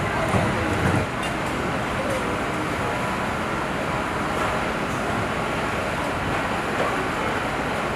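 Steady low background rumble of outdoor noise, with faint voices in roughly the first second.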